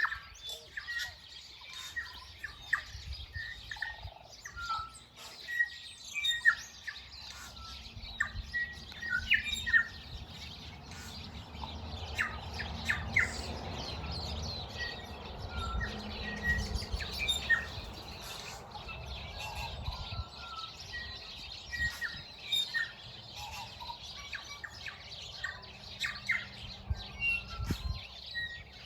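Mixed chorus of wild birds: many short chirps, whistles and calls overlapping. A low rumble sits under them for several seconds in the middle.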